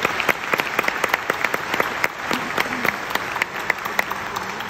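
Audience applauding: many people clapping at once, easing off slightly in the second half.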